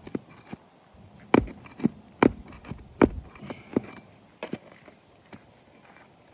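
Irregular sharp metallic clinks and taps of a hand roofing tool working under asphalt shingles to lift out their nails, about half a dozen strong ones in the first few seconds, then fainter.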